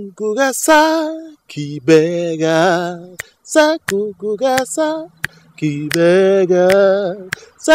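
A man singing unaccompanied, a melodic line in short phrases with brief pauses between them and a wavering vibrato on the held notes.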